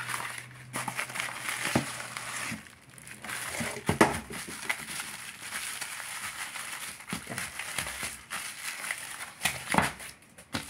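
Bubble wrap and plastic packaging crinkling and rustling as hands unwrap a small package, with a few sharp clicks among the rustling.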